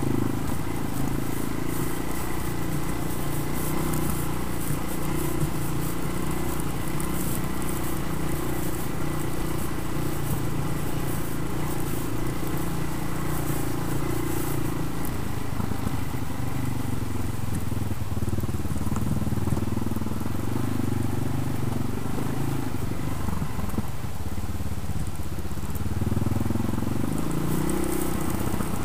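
ATV engine running under way on a trail, its pitch rising and falling with the throttle and climbing near the end.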